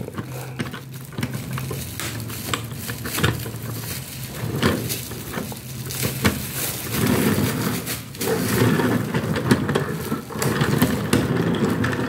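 Unpowered dummy model locomotive, a handmade ABS CC201, rolled by hand along model railway track: its wheels make a low rumble on the rails that swells and fades as it is pushed, with scattered clicks.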